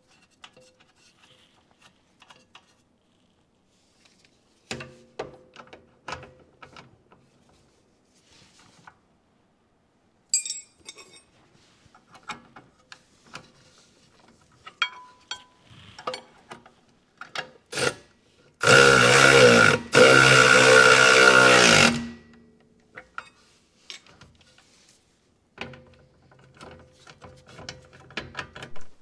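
Hand tools clicking and knocking while suspension bolts are fitted, then a power tool runs loudly for about three seconds, breaking off briefly once.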